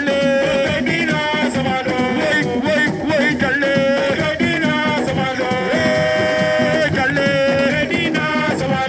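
Music: a song with a singing voice over drums and percussion.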